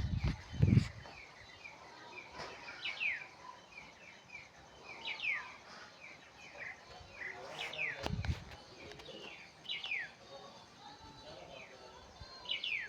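Birds chirping, with one call repeated every couple of seconds as a falling whistled note. A couple of dull thuds come at the start and again about eight seconds in.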